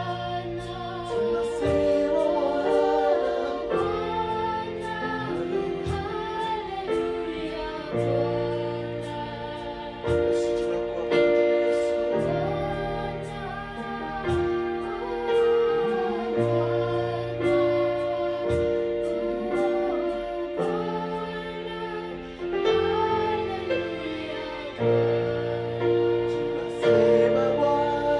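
Live worship song: voices singing over an electronic keyboard that plays held chords, with the bass note changing every couple of seconds.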